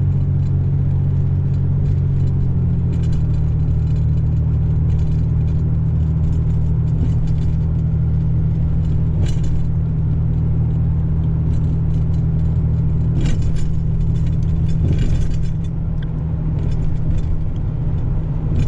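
Inside a moving car: a steady low engine and road rumble, its pitch shifting slightly about two and a half seconds in, with a few short rattles and knocks from the cabin.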